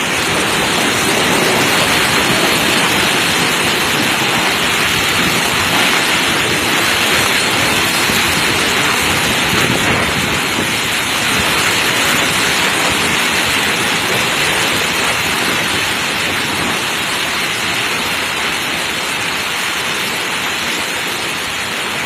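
Very heavy rain pouring down in a steady, dense hiss that holds without a break.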